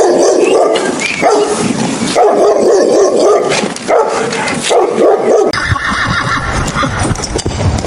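A dog barking over and over, about six barks. A little past halfway the barking gives way to a horse whinnying.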